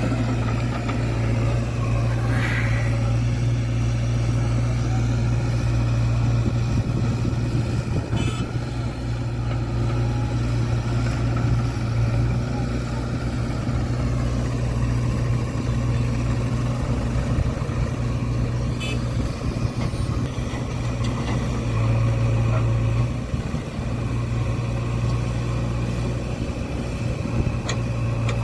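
Heavy diesel engine running steadily under load, with a few faint clanks.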